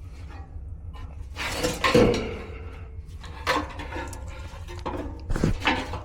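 Clunks and scrapes of a furnace blower assembly being handled, with a cluster of knocks about a second and a half in and single clunks later, over a steady low rumble.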